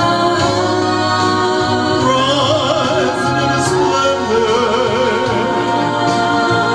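A man singing a country song into a handheld microphone over backing music, holding two long notes with vibrato, about two and four and a half seconds in.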